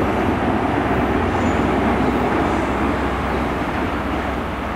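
GWR Class 43 High Speed Train power car's diesel engine with wheel and rail noise as it passes close and moves away, a steady low drone that eases slightly near the end.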